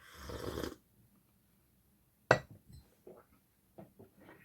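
A short rustle, then a sharp clink about two seconds in followed by a few light knocks, like small hard objects being handled and set down.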